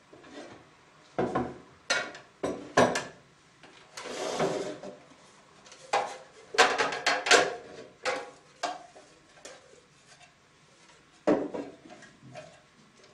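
Knocks and clatter of glass juice jugs and clear plastic pulp containers being lifted, handled and set down on kitchen scales and a counter, about a dozen separate strikes, with a short rubbing sound about four seconds in and a run of clatter a little after six seconds.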